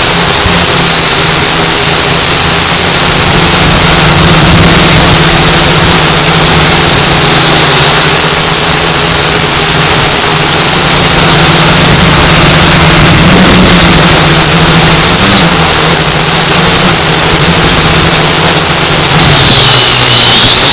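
Small quadcopter drone's electric motors and propellers whining, heard loud and close from the drone's onboard camera microphone. The whine holds a steady high pitch, wavering a little, and dips and rises again near the end as the motor speed changes.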